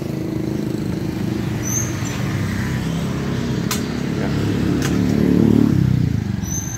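Honda Future 125's single-cylinder four-stroke engine idling steadily, swelling louder and a little higher about five seconds in before settling back. A couple of sharp clicks sound over it.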